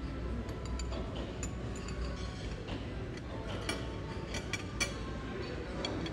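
Metal cutlery clinking and scraping against ceramic plates as food is eaten: a scattered run of light, ringing clinks, busiest about four to five seconds in, over a steady low hum.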